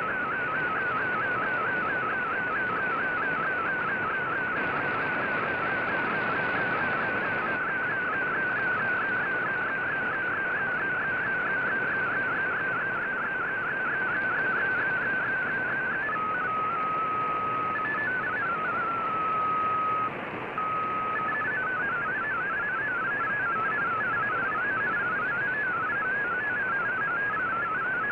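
VOA Radiogram digital-mode signal received on shortwave, heard over steady receiver hiss. For about the first half it is a warbling tone that sweeps upward over and over in a steady rhythm, like image data being sent. It then changes to a steady tone that steps between a few pitches, and near the end to fast-hopping MFSK data tones.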